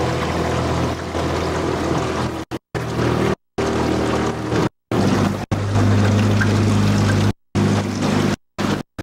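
Small outboard motor running steadily, pushing a small aluminium boat across the water. The sound cuts out to silence for split seconds several times.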